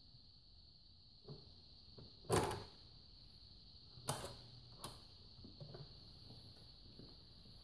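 Vintage 1970s BSR MiniChanger record changer being started by hand: a few clicks and clunks from the control lever and changer mechanism as the tonearm swings onto the record, the loudest a thump about two seconds in. A faint steady high hiss sits underneath.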